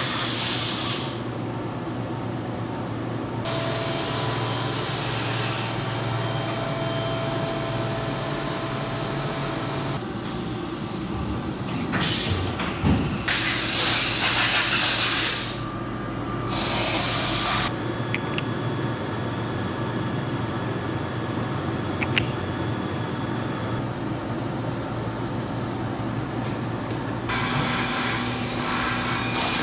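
A CNC machine running with a steady hum and several held tones, broken by loud hissing blasts lasting a second or two, a few of them through the stretch.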